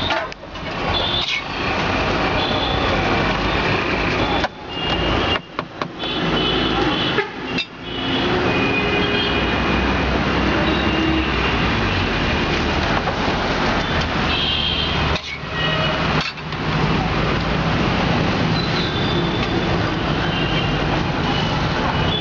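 Busy street noise: traffic running with horns tooting and voices in the background, broken by several abrupt cuts in the sound.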